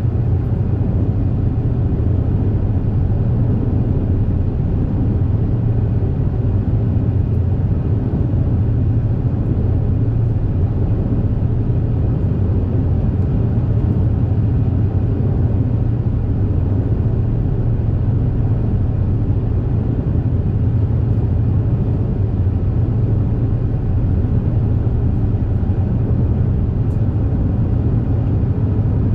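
Steady low hum and rumble of the Super Jet "Zuiko", a high-speed jetfoil, heard inside its passenger cabin while it runs at cruising speed.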